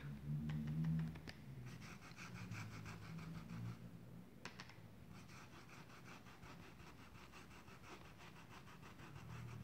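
Paintbrush stroking thinned fabric paint onto denim: soft, quick, evenly repeated scratchy strokes.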